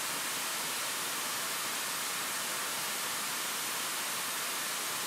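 Model jet turbine engine running at full throttle on diesel fuel, a steady high rushing hiss that stays even throughout.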